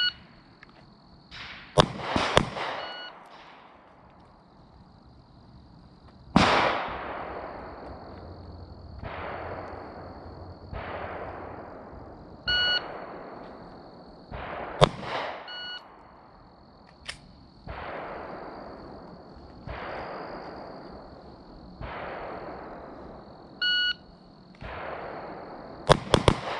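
Glock 27 pistol shots, fired singly and in quick pairs, each followed by a long fading echo. A few short electronic beeps sound between the shots.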